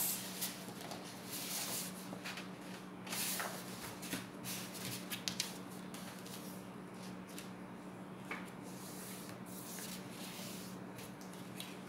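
Bristol board rustling and sliding as it is folded in half and the crease is smoothed down by hand, in soft, scattered rustles. A faint steady hum lies underneath.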